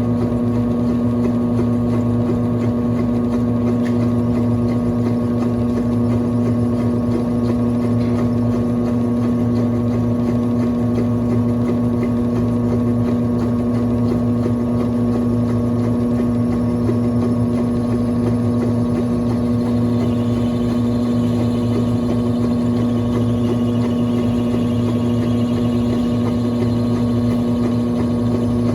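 1996 Brastemp Clean 5 kg (BWR22A) washing machine running with a steady, even motor hum.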